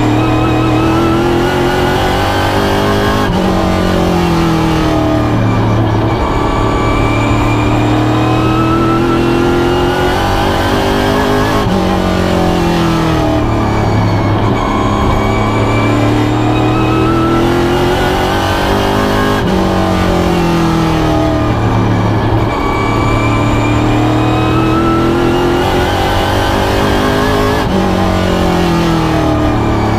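Pro stock race car's V8 engine heard from inside the cockpit at racing speed, lap after lap. Its pitch climbs steadily under full throttle, drops sharply as the driver lifts for the turns, then climbs again out of the corner, a cycle that repeats about every eight seconds.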